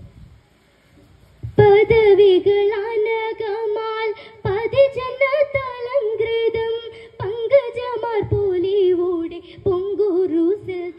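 A girl singing a Mappilappattu unaccompanied, her voice holding long, wavering notes with quick ornaments. She comes in about a second and a half in, after a short pause for breath.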